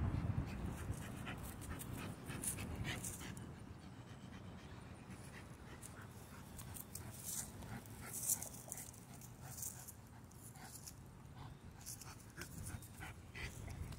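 A micro bully dog panting quietly.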